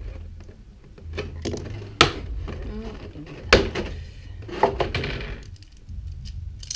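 Clear plastic packaging being pulled apart and handled: rustling and crinkling plastic with sharp snaps, the loudest about two seconds and three and a half seconds in, and another a second later.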